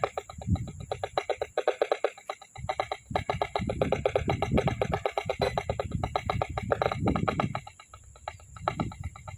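An alarm-like electronic ringing repeating in a fast, even pulse, with deep irregular rumbles beneath it. The source is unidentified; it was taken for an alarm, siren or public announcement.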